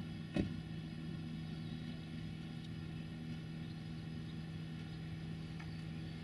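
Diesel train engine idling: a steady, even hum, with a single sharp knock about half a second in.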